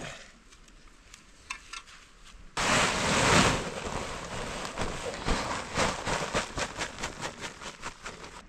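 Food tipped into hot oil in a cooking pan, starting a loud sizzle about two and a half seconds in, which settles into crackling and popping that fades toward the end.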